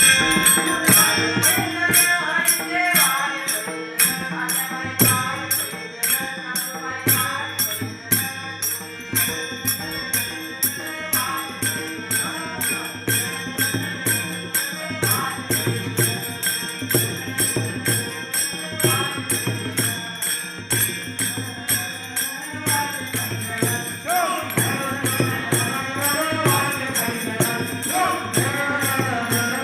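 Devotional bhajan singing: a voice singing a melody over small hand cymbals that keep a steady beat throughout.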